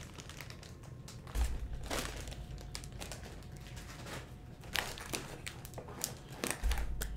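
Plastic mailer bags crinkling and rustling in the hands as a package is unwrapped, in short irregular crackles, with a couple of dull bumps about a second in and near the end.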